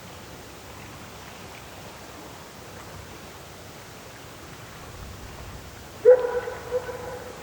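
A dog gives one drawn-out, pitched yelp about six seconds in, held for just over a second with a couple of swells, over a steady background hiss.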